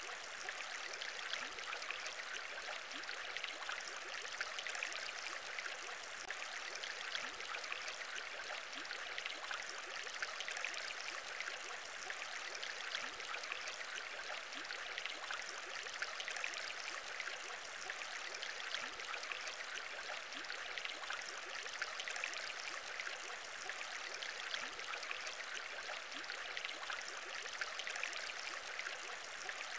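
Aquarium bubble sound: a steady, dense stream of many small bubbles rising and popping, without a break.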